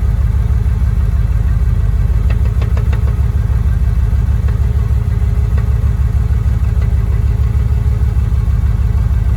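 Manual-transmission car idling in neutral, with a few light rattling clicks from a newly fitted short shifter. The rattle goes away when the shifter is pushed slightly forward, and shims under the shifter have not cured it.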